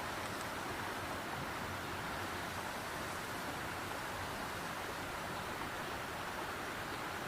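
Steady rush of flowing river water, an even noise that holds without a break.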